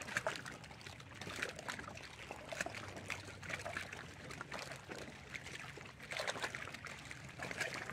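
Irregular small splashes and lapping of lake water around a boat, over a steady low hum.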